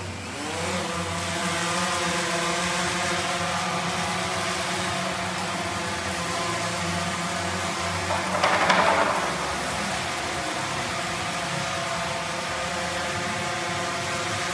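DJI Phantom quadcopter's propellers spinning up in a rising whine as it lifts off, then a steady multi-tone buzzing hum as it flies. About eight and a half seconds in there is a brief, louder rush of noise.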